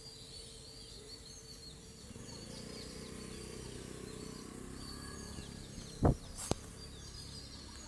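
Small birds chirping over a steady outdoor hum, with two sharp knocks about six seconds in, half a second apart, the first much louder.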